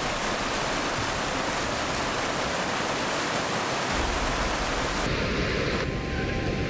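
Rushing floodwater, a steady hiss of fast water. About five seconds in the sound changes abruptly, getting less bright, and a faint steady tone joins it.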